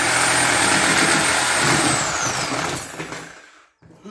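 Electric power saw running with a steady high whine, then switched off about two seconds in, its motor winding down with a falling whine until it fades out.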